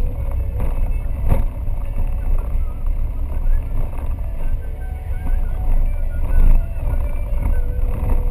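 A 4x4 driving slowly on a rough dirt track, heard from inside the cab: a steady low rumble of engine and tyres, with a single sharp knock from a jolt about a second in.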